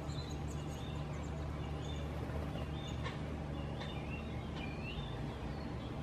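Steady low mechanical hum with faint bird chirps and short whistled calls over it, and a couple of faint clicks in the middle.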